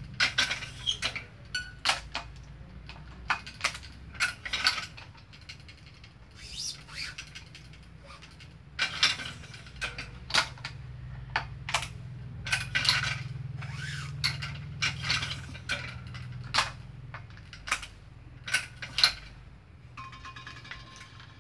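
Badminton racket being strung by hand on a stringing machine: irregular sharp clicks and ratcheting from the tensioner and clamps, mixed with short swishes of string being pulled through.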